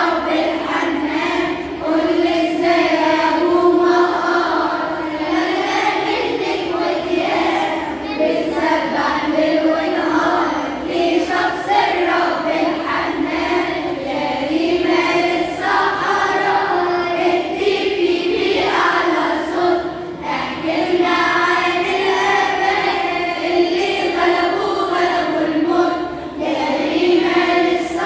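Children's choir singing an Arabic Christian hymn together, the singing carrying on without a break, with a few adult women's voices among them.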